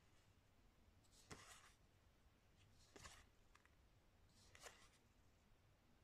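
Faint swishes of stiff game cards sliding against each other as they are moved one at a time from one stack to the other. Three short slides about a second and a half apart, with a couple of tiny clicks between them.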